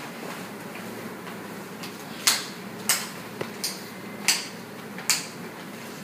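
A series of about six short, sharp clicks or taps at uneven intervals, starting about two seconds in, over a faint steady hum.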